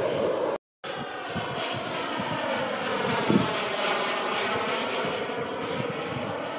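Turbine of a radio-controlled scale model Aermacchi MB-339 jet flying past overhead: a steady jet whoosh that swells around the middle and eases off toward the end. The sound drops out for a moment before the first second.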